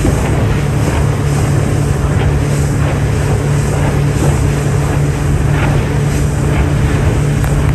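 Motorboat running at speed on open sea: a steady engine drone under the rush of water along the hull, with wind buffeting the microphone.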